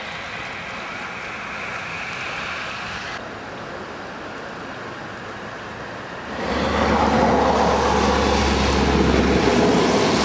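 Flash-flood water rushing, a steady noisy wash. About six and a half seconds in, a louder, steady low rumble comes in and carries on.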